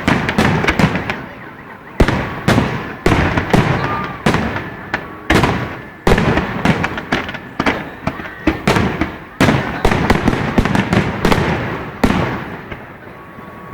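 Fireworks display: rapid salvos of aerial shells bursting, sharp bangs in quick clusters, each with a trailing rumble. The bangs stop after the last big burst near the end, leaving a fading rumble.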